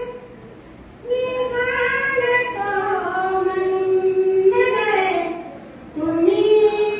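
A woman's voice singing a Marathi Buddhist devotional song (Bhimgeet) with long, drawn-out notes in two phrases, with a breath pause just before the first and another around five seconds in.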